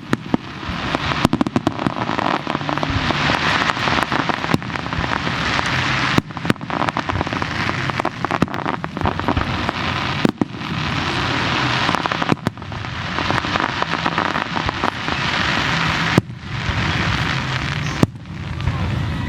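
Aerial fireworks going off in quick succession: many sharp bangs over a dense, continuous crackle, with brief lulls between volleys.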